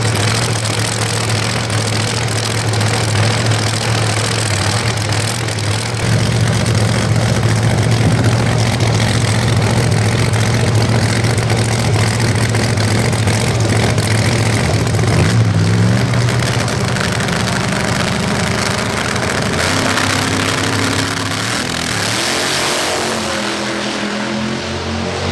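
Supercharged V8 drag car engine idling with a steady, heavy low note, louder about six seconds in. Near the end it revs up and accelerates away, its pitch climbing in steps.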